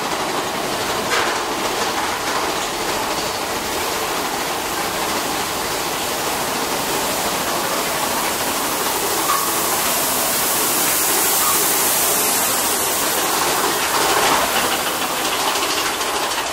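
Mine-train roller coaster cars running along the track: a steady rushing rumble and clatter, with a few sharp clanks.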